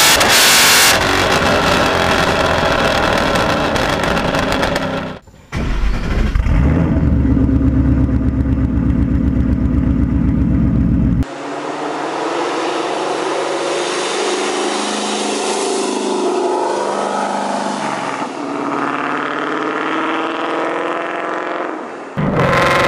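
Ford Mustang GT's 5.0 V8 exhaust in a string of separate recordings: revving at the start, then a deep pulsing rumble, then a recording with rising and falling revs. There is a brief dropout about five seconds in, and further sudden changes where the recordings are joined, at about 11 and 22 seconds.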